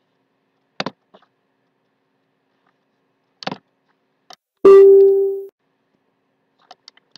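A few sharp clicks, like a computer mouse, then about four and a half seconds in a loud single-pitched electronic chime, a computer alert sound, that holds briefly and fades out within about a second.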